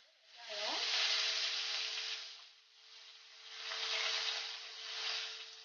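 Chopped onions sizzling as they hit hot oil with whole spices in a kadai. The hiss swells about half a second in, dies down around the middle, and swells again, with a faint steady tone underneath.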